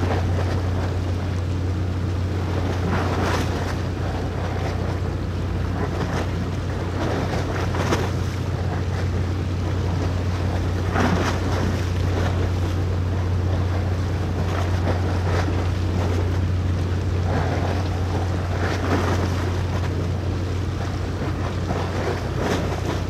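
A ship's engine running: a steady low hum, with wind buffeting the microphone in irregular gusts.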